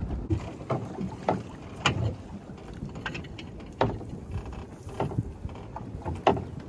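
Water slapping against the hull of a small open fishing boat, a series of irregular sharp slaps over a low rumble of wind buffeting the microphone.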